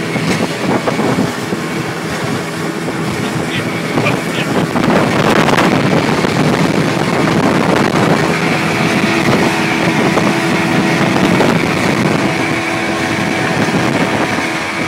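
Motorboat engine running steadily at speed, with rushing wind and water noise. The engine tone grows stronger about halfway through.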